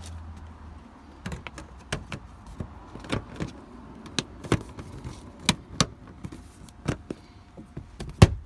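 Irregular sharp clicks and taps of wiring and plastic parts being handled while an EGT probe harness is routed, with one louder knock near the end.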